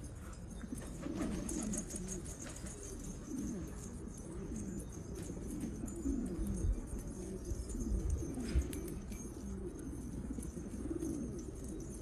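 Several domestic pigeons cooing, their low rolling coos repeating and overlapping throughout. Two low thumps come about six and a half and eight and a half seconds in.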